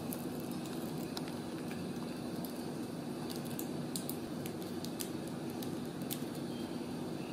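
Scattered light clicks and scratches of a kitten's claws on a corrugated cardboard scratcher as it paws a plush toy, over a steady low hum.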